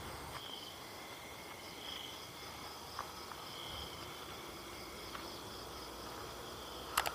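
Crickets and other night insects chirring steadily in several high-pitched layers, one layer swelling about every second and a half. A few faint clicks, and a sharper double click near the end.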